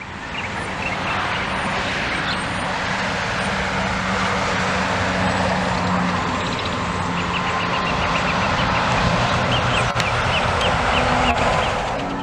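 Steady rushing outdoor noise under a low steady hum, with short high chirps scattered through the second half.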